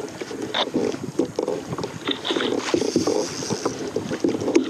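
Choppy sea water slapping and sloshing against a plastic fishing kayak's hull in quick, irregular splashes, with wind on the microphone.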